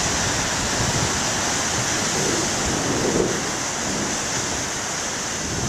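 Big ocean waves surging and breaking on the shore: a steady rushing surf that eases slightly toward the end.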